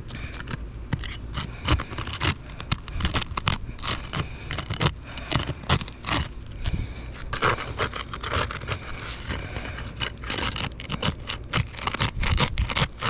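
Rapid, uneven scraping and sharp clicks of a tool working under a roof shingle, prying it loose as it tears: the sealant bond is holding, so the shingle rips rather than releasing cleanly. A constant low rumble lies underneath.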